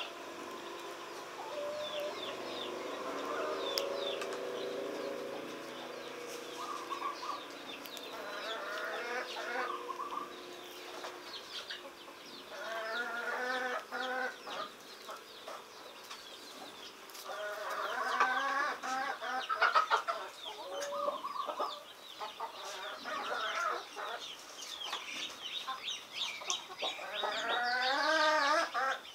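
Birds clucking in repeated bouts of wavering calls a second or two long, with short high chirps scattered throughout.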